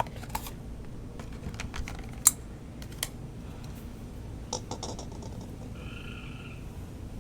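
Scattered light clicks and taps of hands handling a new oil filter and bottle of motor oil, with one sharper click a little past two seconds in. A faint high call sounds briefly near the end.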